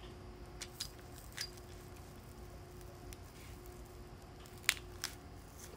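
Scattered faint clicks and taps from handling a circuit board and its components, with the sharpest click near the end, over a faint steady hum.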